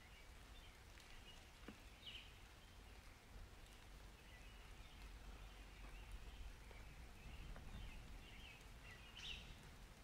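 Faint summer-rain ambience: a soft even patter over a steady low rumble, with a few short bird chirps, the clearest about two seconds in and near the end.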